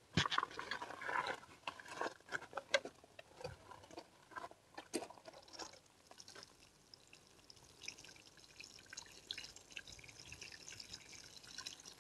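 Water sprinkling from a plastic watering can's rose onto loose soil, a faint patter of drops, while a freshly planted tomato seedling is watered in. A few knocks and clicks in the first seconds as the can is handled.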